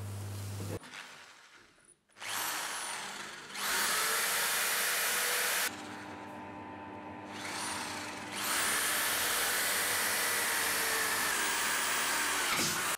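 Cordless drill running in two long bursts: it spins up, runs at full speed, drops to a slower, quieter speed, spins up again and winds down near the end.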